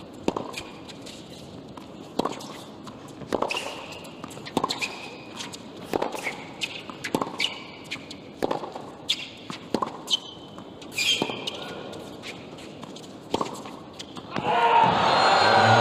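Tennis rally on a hard court: racquets strike the ball about once a second, with shoes squeaking on the court between shots. Near the end the crowd breaks into loud applause and cheering as the point ends.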